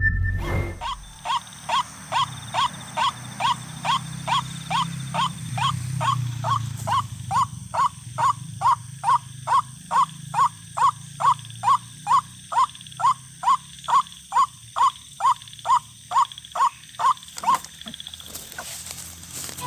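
White-breasted waterhen (ruak-ruak) calls: a long run of short, evenly repeated notes, a little over two a second. They grow louder partway through and stop a couple of seconds before the end. A low hum runs underneath.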